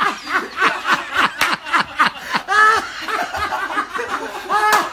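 Men laughing hard at a joke, the laughter coming in quick rhythmic pulses, with a higher drawn-out laugh about halfway through and another near the end.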